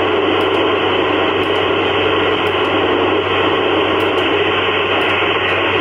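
Steady, loud FM static from an Icom IC-705 receiving the PO-101 satellite's 145.900 MHz FM downlink: open-squelch noise while no station is transmitting through the satellite.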